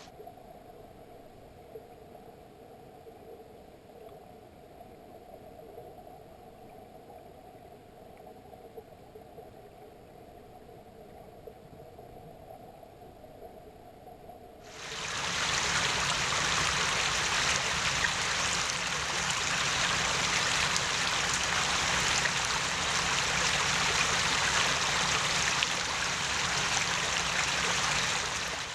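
Running stream water. For about the first half it is heard from underwater: a faint, low, muffled wash. About halfway it switches suddenly to a loud, even rush of shallow stream water heard from above the surface.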